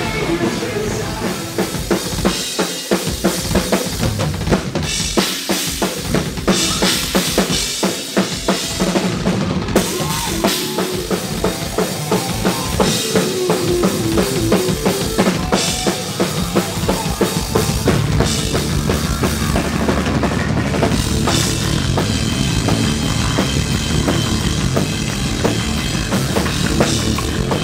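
Live rock band playing loud and hard: a drum kit pounding with bass drum, snare and crashing cymbals under electric bass and guitar. The low end gets heavier about two-thirds of the way through.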